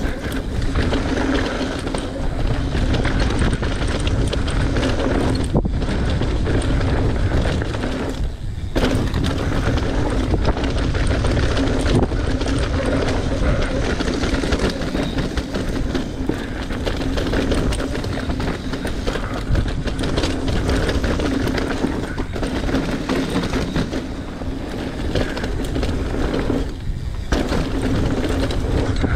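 Mountain bike descending a rocky, dusty trail at speed: a continuous rumble and rattle of tyres on dirt and loose rock and of the bike's frame and chain, with heavy wind noise on the microphone. The noise drops out briefly a few times.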